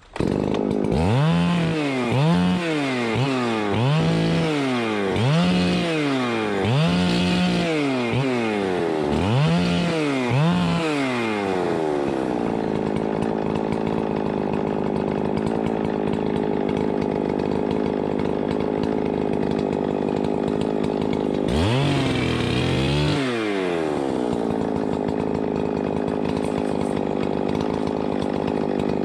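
Chainsaw engine revved up and down in quick repeated blips, about eight in the first eleven seconds, then held at a steady high speed, with one more rev-up and drop about two-thirds of the way through.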